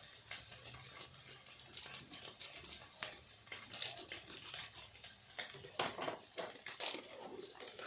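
Egg roll filling sizzling in a hot frying pan, with repeated clicks and scrapes of a utensil against the pan.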